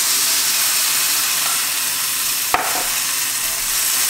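Soy-based stir-fry sauce sizzling as it hits a hot wok of noodles and vegetables and is stirred in with a spatula, the sauce deglazing the pan. A single sharp click about two and a half seconds in.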